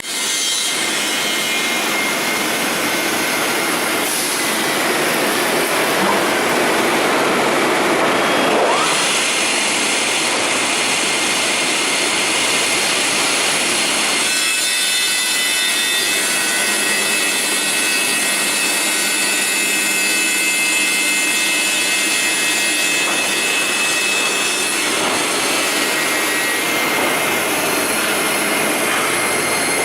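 CNC cutting machine cutting magnesium oxide (MgO) board: a loud, steady machine noise with a whine. A rising whine builds from about four seconds in and breaks off near nine seconds.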